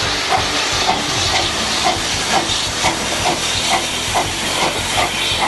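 Small steam tank engine in Thomas the Tank Engine livery moving slowly with a coach, hissing steam around its cylinders and giving a steady beat of exhaust chuffs about twice a second.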